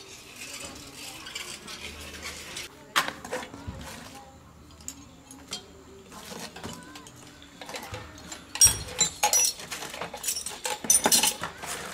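Clinking and knocking of small hard objects: a sharp clink about three seconds in, then a run of loud clinks and knocks over the last few seconds.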